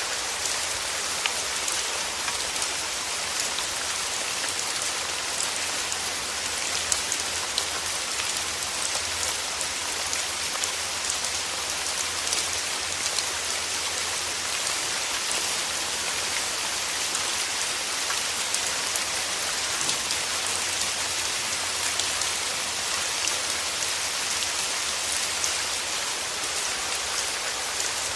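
Steady rain falling on a surface: a dense, even hiss with many small drop ticks.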